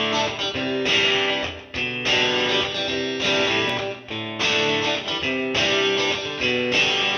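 Background music: guitar chords played in a steady rhythm.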